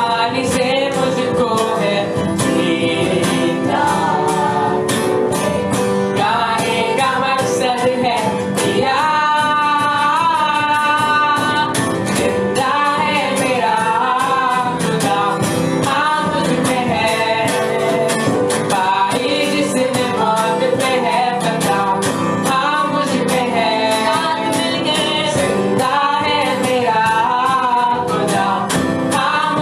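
Live worship music: a singer over acoustic guitar and band backing, with a long held, wavering note around ten seconds in.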